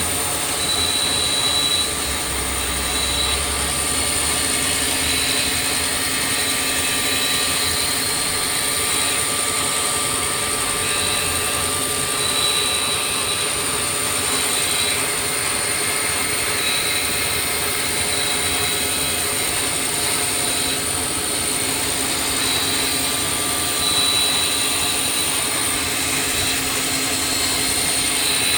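CNC machine running: a steady mechanical whine with several high tones held throughout, one of them cutting in and out every second or two.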